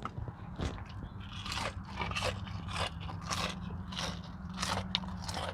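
Close-up crunching of a fried onion ring being bitten and chewed, about two crisp crunches a second, over a steady low hum.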